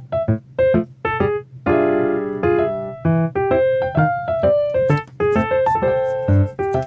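Background music: a bouncy tune of short, staccato piano-like keyboard notes, with a held chord about two seconds in.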